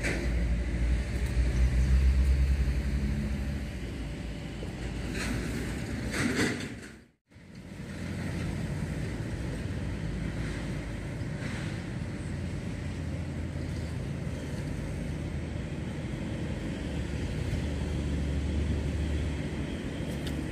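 Low engine rumble, as of a motor vehicle going by, swelling in the first few seconds and again near the end. The sound drops out briefly about seven seconds in.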